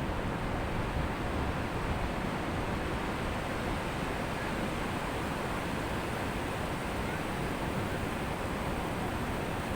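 Ocean surf on a beach: a steady, unbroken rush of breaking waves.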